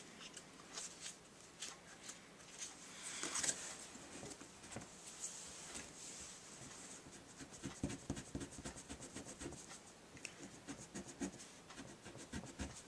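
Pink rubber eraser scrubbed back and forth over cardstock to rub off dried glue residue and its shine. It is a faint, quick scratchy rubbing, scattered at first and faster and more continuous in the second half.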